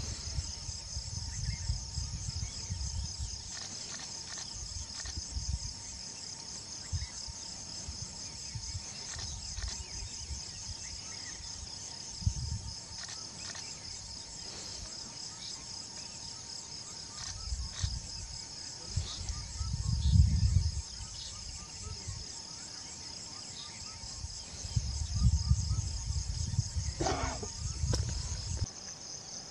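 Steady chorus of night insects, a high pulsing trill that never stops. Under it come uneven low rumbles and thuds, loudest about twenty seconds in and again near the end.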